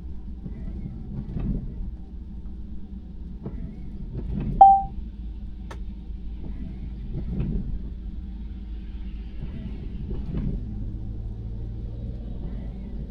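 Low, steady road and tyre rumble heard inside the cabin of a 2021 Tesla Model Y electric SUV, with a few soft thumps. A single short electronic chime sounds about four and a half seconds in.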